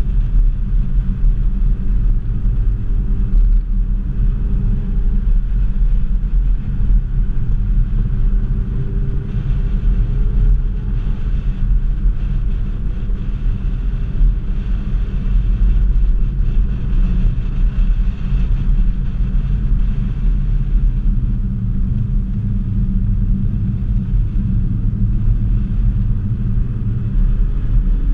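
Ford Focus ST's turbocharged four-cylinder engine being driven hard, heard from inside the cabin under a heavy low rumble of road and wind noise. The engine note rises several times as the car accelerates.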